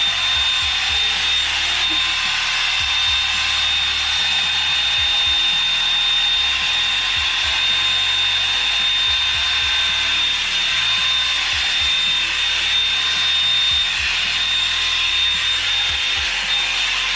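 Revlon One-Step Volumizer hair dryer brush running steadily, a loud rush of blown air with a thin high whine from its motor.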